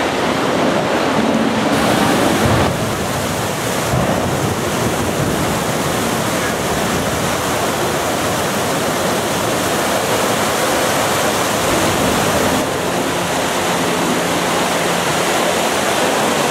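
Steady rushing of fountain water at the World War II Memorial's pools. The character of the noise shifts slightly at a few cuts.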